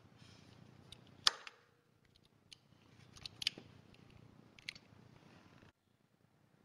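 A few sharp clicks and taps of tools and parts as a starter motor is slid into its housing and its two mounting bolts are tightened. The loudest click comes about a second in, with smaller ones around the middle.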